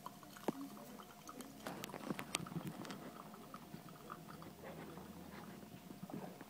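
Thin stream of hot water from a stainless gooseneck kettle trickling onto coffee grounds in a gold mesh filter: a faint, soft crackling pour with scattered light clicks.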